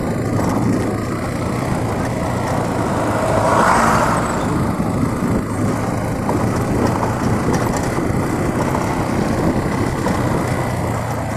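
Motorcycle engine running at low speed on a rough dirt street, heard from the rider's seat with wind and road noise. A brief swell of rushing noise comes about four seconds in.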